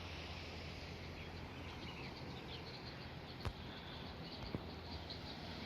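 Steady wash of waves on a sandy beach, with many faint high chirps over it and two brief clicks a little past the middle.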